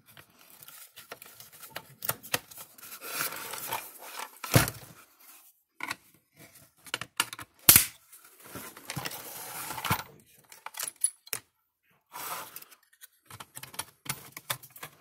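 Handling noise from fitting a fence energizer's transformer, circuit board and capacitors into its case: irregular clicks, scraping and rattling of metal and plastic parts, with two sharp knocks a few seconds apart near the middle.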